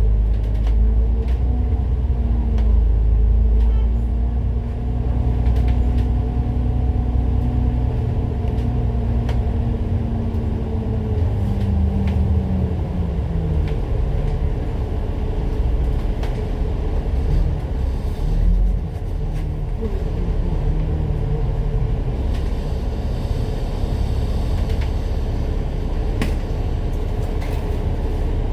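Citybus double-decker bus running, heard from on board: a steady engine note climbs slightly under power for about ten seconds, then drops away as the bus eases off. Rumble and light rattles follow.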